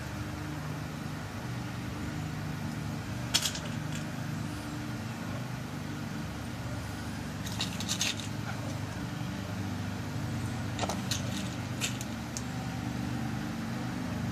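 Small metal lock pins being dropped and set into a lock cylinder during a rekey, giving a few light clicks in three short clusters, over a steady low hum.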